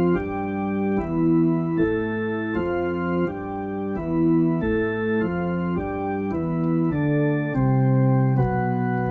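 Intro music: a run of held chords changing roughly every half second to second, the last one held longer near the end.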